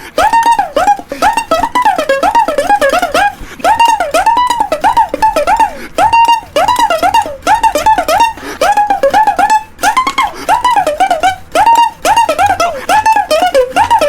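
Music: a plucked string instrument playing a quick melody by ear that copies the rise and fall of the spoken phrase, each short note sliding up and then back down in pitch.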